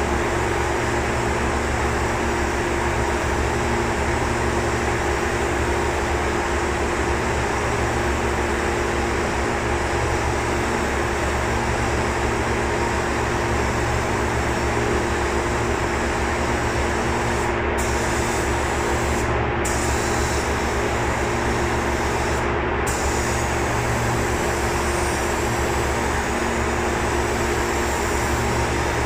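Compressed-air paint spray gun hissing steadily while spraying primer, over a steady low fan hum. The high hiss cuts out briefly three times in the second half.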